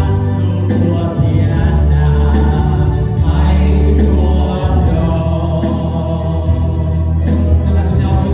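Live gospel worship music: a choir singing over organ and a strong bass line, with percussion strikes.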